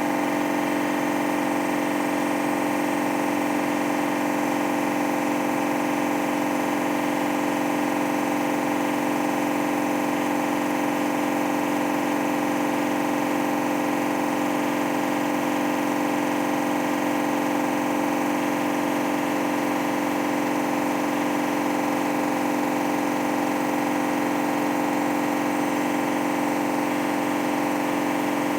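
Candy washer-dryer on its spin cycle, giving off a steady, unchanging hum with a strong low tone and many higher tones. It is the noise during spinning that the owner takes for a fault, which Hoover calls normal for Candy washing machines.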